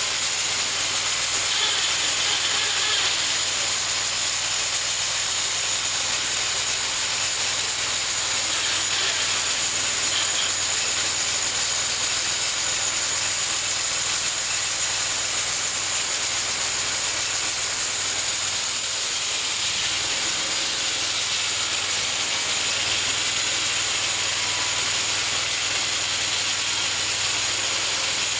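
Homemade bandsaw mill running steadily, its blade sawing through a cherry log: a constant hiss over a steady low hum.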